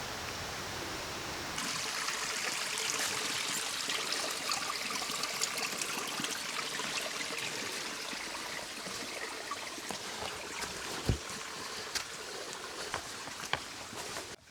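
Creek water running and trickling over rocks, a steady rushing hiss with small splashes and clicks; the sound brightens and gets livelier about a second and a half in.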